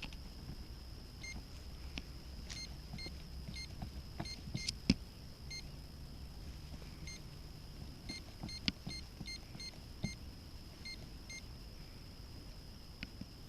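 Fish finder's keypad beeping: a string of short, identical electronic beeps in irregular little groups as its buttons are pressed to set it back to fish mode.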